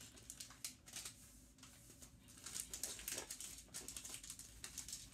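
Wrapping paper crinkling and rustling in a run of short, irregular crackles as it is folded around a small gift by hand.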